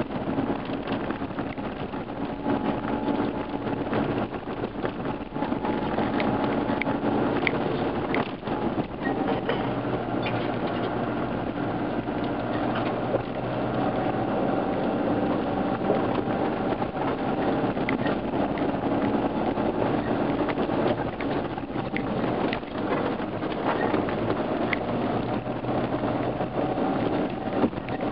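Off-road 4x4's engine running steadily as it drives along a dirt track, with tyre and gravel noise and many scattered small knocks and rattles from the rough surface.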